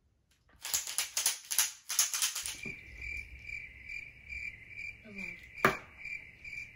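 A run of sharp crackles, then crickets chirping in a steady, evenly pulsing trill, with one loud click about a second before the end. This is the stock 'crickets' sound effect for an awkward silence with no answer.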